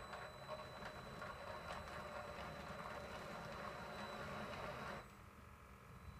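Electric drive motor and gears of an RC model Scania 4x4 truck whirring steadily under load as it crawls up a steep slope. The whirring stops about five seconds in.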